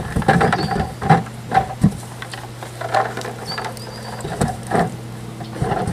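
NiceRink plastic rink brackets knocking and clattering against one another in irregular bursts as they are picked up and stacked on a person's arm.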